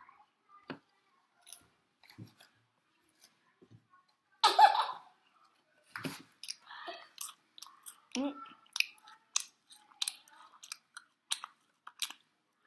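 Close-miked chewing and crunching of fried food, with wet mouth clicks that come thicker in the second half. A louder, fuller mouth sound stands out about four and a half seconds in.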